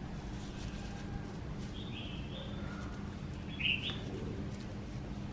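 A few short, high bird chirps, the loudest about three and a half seconds in, over a steady low background hum.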